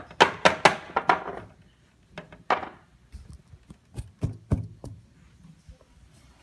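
Clicks and knocks of small toys and a toy house being handled: a rapid cluster in the first second and a half, a brief rustle, then a few sharper knocks around four seconds in.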